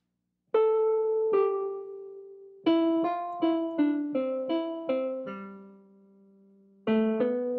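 Solo piano music: a slow melody of single notes that ring and die away, starting about half a second in, with a quick run of notes, a long held low note, and more notes near the end.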